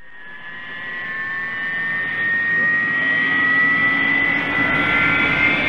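Intro sound effect like a jet engine spooling up: a whine that slowly rises in pitch and grows louder over about three seconds, over a rushing noise.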